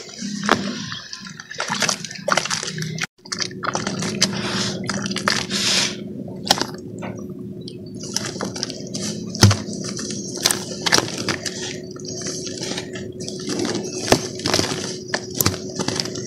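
Pure cement being crumbled by hand into a basin of water: dry chunks crackle and break apart, and grit and lumps splash and drip into the water.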